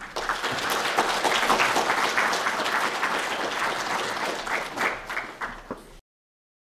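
Audience applauding, thinning out toward the end and then cut off abruptly about six seconds in.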